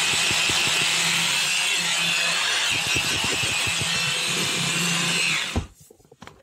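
Bosch hand blender with its chopper attachment running steadily at full speed, chopping a mushroom and onion filling. It cuts off about five and a half seconds in with a short thud.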